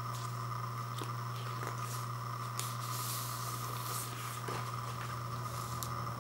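Paper inner sleeve rustling and scraping as a vinyl record is slid out of it, with a few light handling taps and a brief louder rustle about halfway through, all over a steady low hum.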